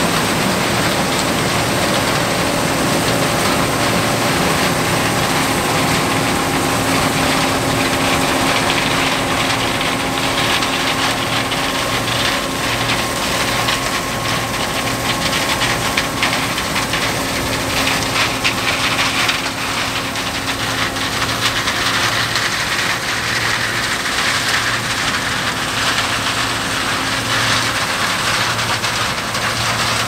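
John Deere 8820 Titan II combine running under load while harvesting corn: the steady note of its 225 hp diesel engine mixed with the constant whine and rush of the threshing and separating machinery. The sound eases off slightly past the middle.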